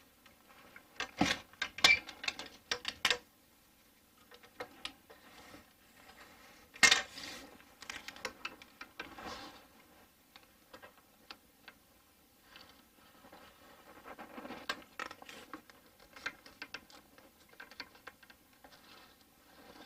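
Scattered clicks, clinks and knocks of metal hardware and tools being handled and set down, with a quick flurry of clicks about a second in and one sharp knock about seven seconds in.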